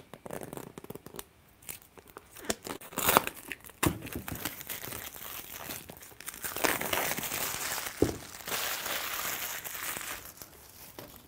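Plastic shrink-wrap being picked at, torn and peeled off a cardboard phone box, crinkling and crackling in short scratchy bursts, with a longer run of continuous crinkling in the second half.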